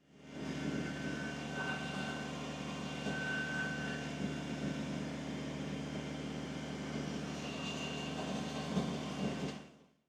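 Kubota BX23S compact tractor's three-cylinder diesel engine running steadily while working the box blade, with a faint high whine above the engine. The sound fades in at the start and fades out near the end.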